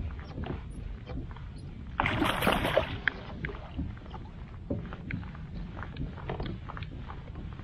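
A hooked rainbow trout being played close to a kayak: water splashing and lapping with many small clicks, and a louder rush of splashing about two seconds in that lasts about a second.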